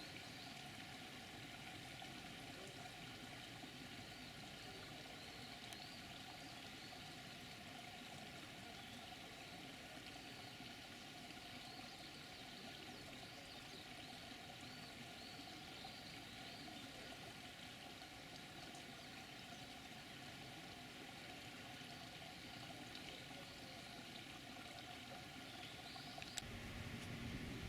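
Faint steady outdoor ambience: an even hiss with faint wavering tones, getting a little louder near the end.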